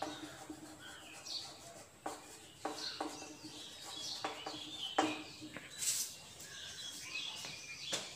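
Birds chirping, with intermittent taps and scrapes of chalk writing on a chalkboard and a few sharp knocks.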